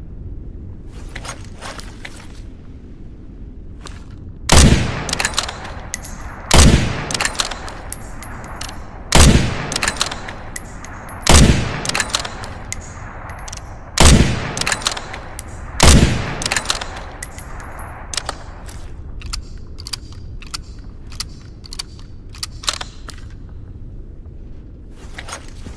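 Winchester Model 70 bolt-action rifle fired six times, roughly two seconds apart, each loud shot trailing off in an echo. Short metallic clicks come between the shots and in a long string after the last one.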